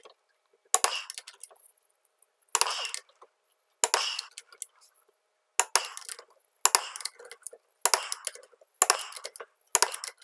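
Torque wrench clicking and ratcheting on the wheel-spacer bolts as they are tightened in stages toward 89 foot-pounds: short bursts of sharp metallic clicks about once a second.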